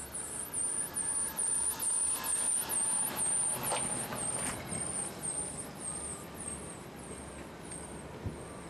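A car driving past on the street, its engine and tyre noise swelling over the first few seconds and fading away after about five seconds.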